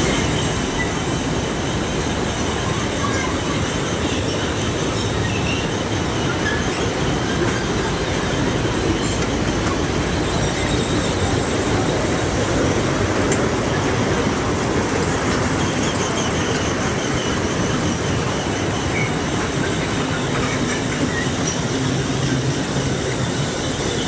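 Children's carousel of miniature cars and motorbikes running: a steady mechanical rumble of the turning ride's wheels and drive.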